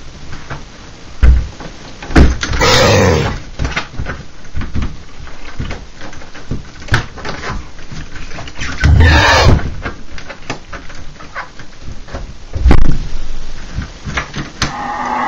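Interior door being forced and rattled at its knob: several heavy thumps, and two long rasping sounds of about a second each, with smaller knocks and clatter between them.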